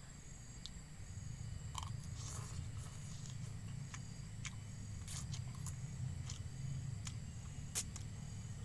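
A person chewing a mouthful of instant cup noodles, with scattered small wet clicks over a low steady rumble.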